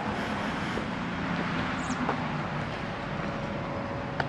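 Steady low vehicle rumble in the open air, with a single sharp click near the end.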